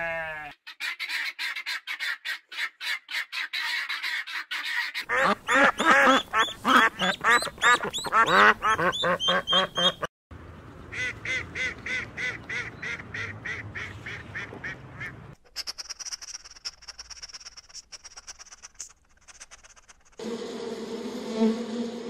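Helmeted guinea fowl calling in a flock, a rapid run of harsh repeated cries, followed by mallard ducks quacking in an even series of calls. Near the end come a high thin steady whistle and then a low steady buzz.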